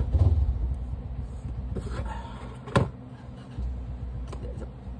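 Handling of a small plastic mobile phone and its battery: a brief rustle about two seconds in, then a sharp plastic click a little under three seconds in, over a steady low rumble.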